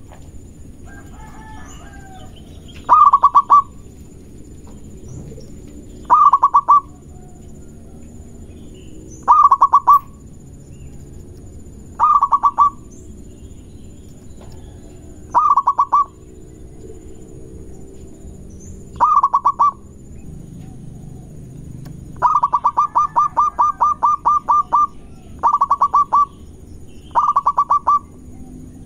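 Zebra dove (perkutut) singing its cooing song: a quick run of stuttered coos repeated about every three seconds, nine phrases in all, one of them a longer run about three-quarters of the way through.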